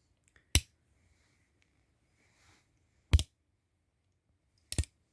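Three sharp clicks from handling a single-action revolver and its cartridges, each separated by about two seconds of quiet, the last one doubled.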